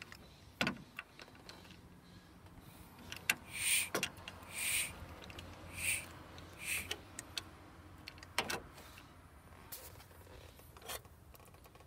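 Hand-held pistol-grip vacuum pump being squeezed, about four short airy strokes roughly a second apart, with a few sharp clicks, drawing vacuum up toward 20 inHg on a Ford 6.9 diesel's vacuum regulator valve for a shift-vacuum test.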